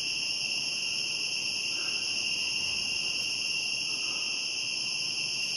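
Crickets chirring in a steady, unbroken chorus, high-pitched and continuous.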